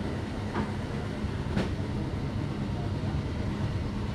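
Steady low rumble with a faint hum, and two light clicks, about half a second and a second and a half in.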